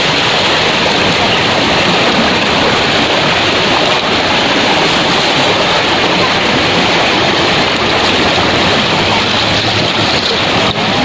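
Shallow, fast-flowing river rushing and churning around waders' legs: a loud, steady water noise.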